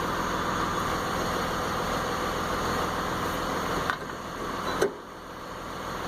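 Steady machine-like whooshing noise, with two sharp clinks about four and five seconds in.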